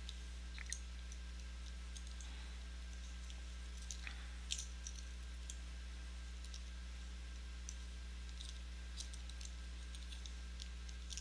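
Low steady background hum with a few scattered faint clicks, the loudest about four and a half seconds in.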